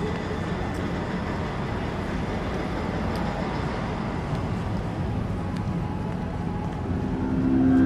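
City street ambience: a steady wash of road traffic noise.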